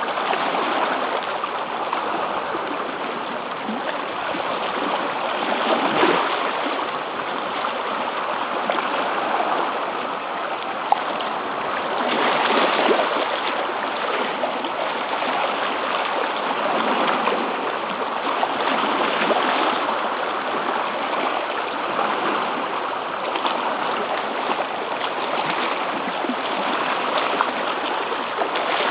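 Seawater washing and splashing against the shore rocks: a steady rush that swells and eases a little, with one sharp click about eleven seconds in.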